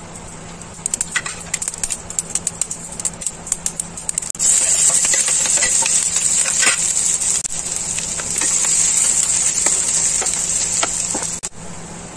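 Mustard seeds popping and crackling in hot oil, a quick stream of sharp pops. About four seconds in, a louder, steady sizzle takes over as chopped onion and green chilli fry in the oil, until it cuts off near the end.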